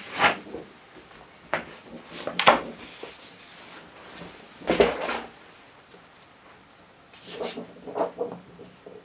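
Handling noises: a string of short knocks and scrapes at irregular intervals, the sharpest about two and a half seconds in and a duller knock near the middle, with a looser flurry of scraping near the end.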